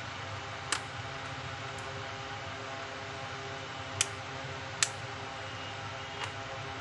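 Four short, sharp clicks, spread over several seconds, as the keyboard of an Asus X540U laptop is prised up out of its top case, over a steady hum.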